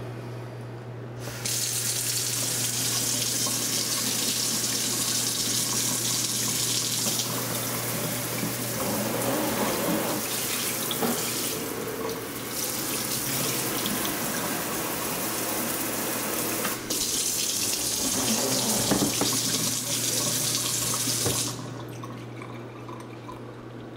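Water from a pull-out kitchen faucet sprayer hitting the basin of a kitchen sink: turned on about a second in, a steady hiss that changes in tone a few times, then shut off near the end.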